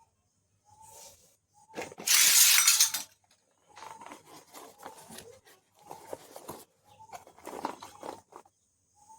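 Small plastic toy kitchen pieces and their packaging being handled. A loud rustling burst lasts about a second, starting about two seconds in, followed by a run of light clicks and clinks.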